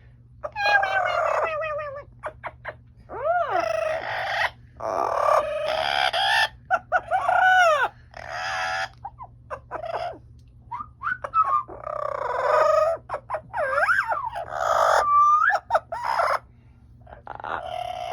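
Amazon parrot giving a run of loud squawks, whistles and harsh calls, many of them sliding up and down in pitch, with a few short clicks about two seconds in.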